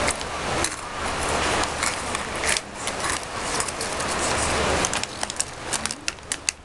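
Close-up crunchy chewing of mini oat cookies, mixed with crinkling of the plastic snack packet. A quick run of sharp crackles and clicks comes near the end.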